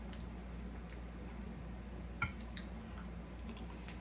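Metal fork clinking against a plate while eating: one sharp ringing clink a little past two seconds in and a few lighter taps, over a steady low hum.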